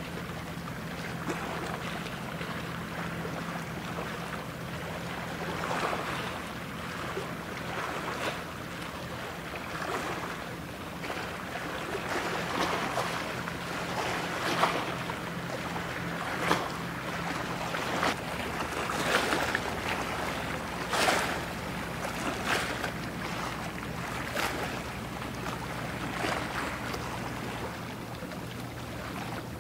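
A cargo ship passing close, its bow wave rushing and splashing, with irregular louder slaps of water over a steady low engine hum.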